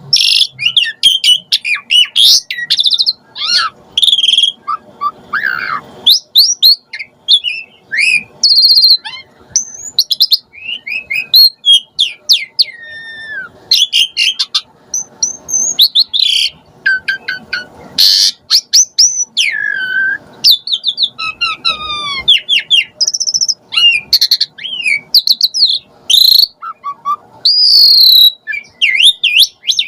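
Javan pied starling (jalak suren) singing a long, fast, varied song of whistles, chirps, sliding notes and harsh chattering phrases with only short pauses, packed with imitated calls.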